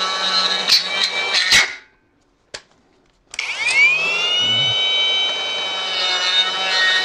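Electric straight die grinder running a rotary burr in the cast-iron oil passage to the oil filter of a Toyota 1G-FE block, enlarging the channel to improve oil flow. It whines steadily with a few sharp clicks from the burr catching the metal, cuts off about two seconds in, then restarts about a second later, its whine rising as it spins back up and then holding steady.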